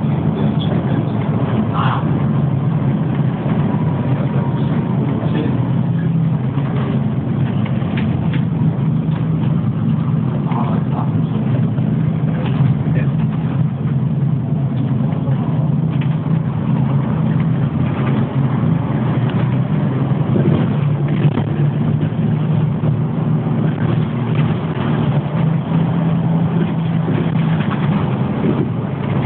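City bus engine and drivetrain running steadily as the bus drives along, heard from inside the passenger cabin, with occasional small clicks and rattles.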